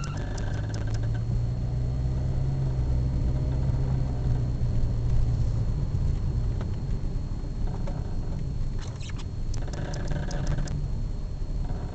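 Cabin of a 1999 Pontiac Sunfire GT: a steady low rumble with a short high squeal that comes and goes about four times, plus a quick run of clicks near the three-quarter mark. The owner suspects yet another worn strut mount behind the squeal.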